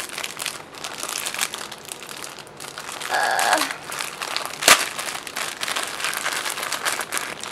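Clear plastic bag and printed plastic wrapper crinkling and crackling as hands pull them open, with one sharp crack a little past the middle, the loudest moment.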